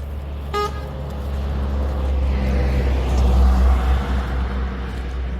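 A short vehicle horn toot about half a second in, then road traffic: a vehicle passing, growing louder towards the middle and easing off, over a steady low rumble.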